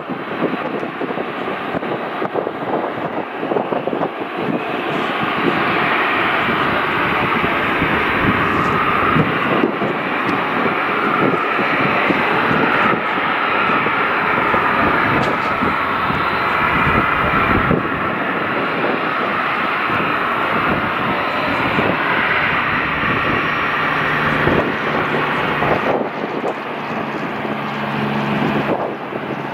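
Boeing 737-300 freighter's CFM56-3 turbofan engines running at taxi power: a steady rushing whine that gets louder about five seconds in as the jet turns toward the camera. A lower hum joins in the last few seconds.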